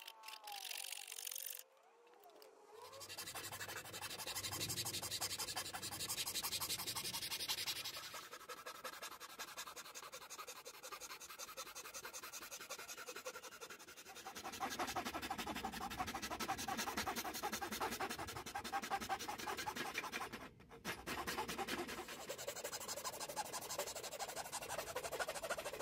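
Hand file scraping along the edge of a thin wooden guitar top piece in steady repeated strokes, in two long spells with a quieter stretch between.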